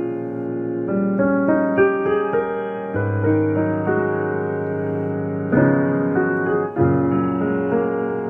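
Background piano music: a slow melody over sustained chords, with new notes struck every second or so.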